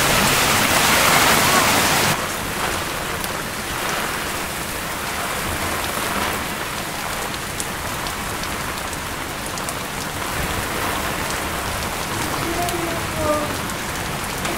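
Heavy downpour: a steady hiss of rain pouring onto surfaces. It is loudest for the first two seconds, then drops to a slightly softer, even rush.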